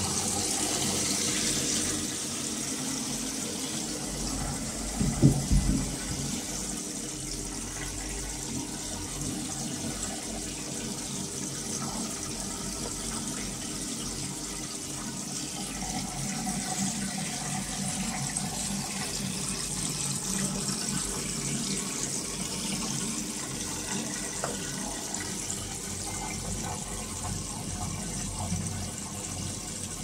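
Arctic L800TA washing machine taking in water for a wash: a steady hiss of water running into the tub, with a brief thump about five seconds in.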